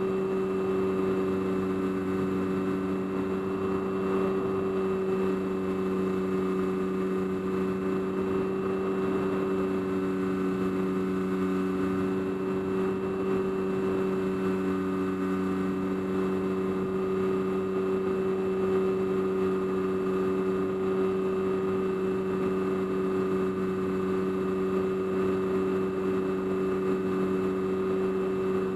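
Electric motor and propeller of an FPV aircraft, heard from on board, running steadily in flight: an even drone holding several fixed tones over a light hiss of air.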